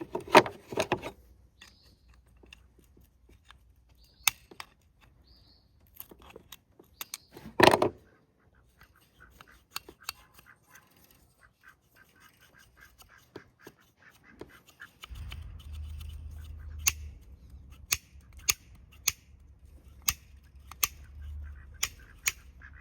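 Scattered clicks, knocks and handling sounds of hand work on a seized ATV carburetor, with a louder clatter near the start and again about eight seconds in. A low rumble sets in about two-thirds of the way through.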